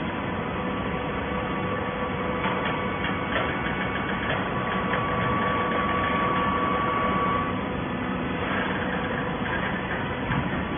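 Hydraulic waste paper baler running: a steady machine hum, with a higher whine through the middle and a few clicks and knocks.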